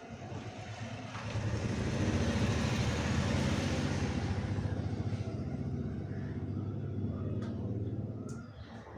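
A motor vehicle's engine passing by, building to its loudest a few seconds in and then fading. A couple of short knocks come near the end.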